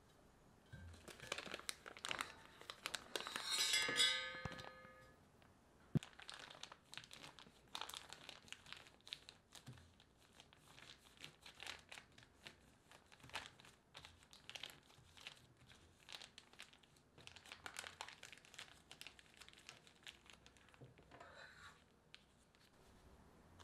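Clear plastic disposable piping bag filled with whipped cream crinkling and rustling as it is handled, twisted and squeezed. Irregular crackles are loudest in the first few seconds, and there is one sharp click about six seconds in.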